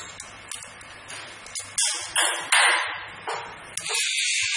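Sharp ringing metallic clinks on a vial filling and capping machine, several in a row starting about two seconds in, then a steady high-pitched rattle near the end.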